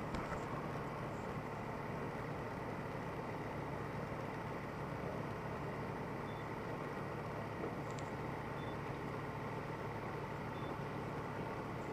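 Light sport aircraft's engine and propeller running steadily at low taxi power, a constant low drone with a faint steady whine above it.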